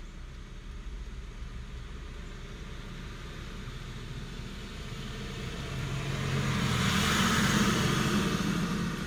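Car driving slowly, a low steady rumble heard from inside the cabin. About two-thirds of the way through, a passing vehicle swells up loudly with a rushing tyre-and-engine sound and then fades.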